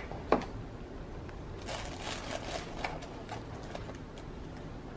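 Small cardboard product boxes being handled and lifted out of a cardboard hamper box: a sharp knock about a third of a second in, then a stretch of cardboard rustling and sliding with small clicks a couple of seconds in.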